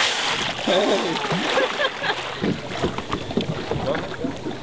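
Gray whale blowing at the surface beside the boat: a short, loud breathy exhale at the start, followed by wordless excited voices of people.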